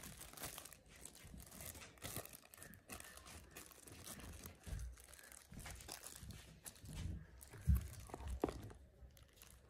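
Plastic packaging crinkling and rustling as a phone and its plastic cover are handled and packed back into a cardboard box tray, with a short low knock about three-quarters of the way through.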